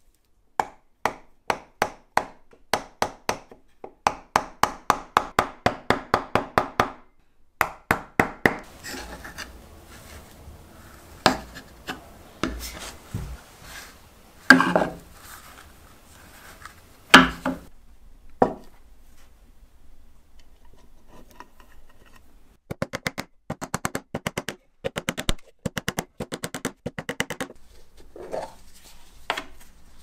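Hand-tool work on a workpiece: runs of quick, short strokes, about five a second, broken by pauses, with two louder single knocks in the middle.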